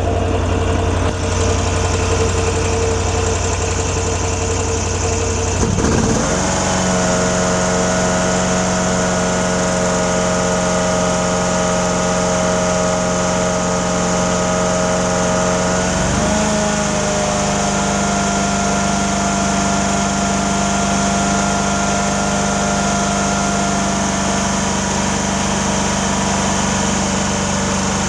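Amtex Marine 4047 APU engine running steadily at idle, then sped up in two quick steps, about six seconds in and again about sixteen seconds in, holding a steady higher speed after each, raised toward 2800–2900 rpm for a decibel reading.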